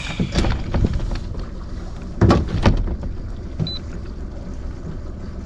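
Boat's outboard motor running steadily with a low, pulsing rumble, with a few sharp knocks a little over two seconds in.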